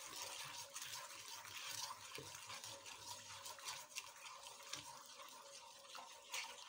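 Wooden spoon stirring dissolved jelly in a non-stick pan: faint swishing and scraping, with a few light ticks of the spoon against the pan.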